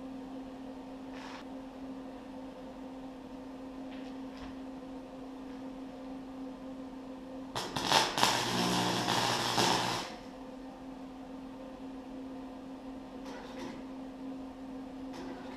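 Steady low electrical hum from a small wire-feed welder. A little past halfway the welding arc strikes and crackles loudly for about two and a half seconds as a short bead is laid, then cuts off.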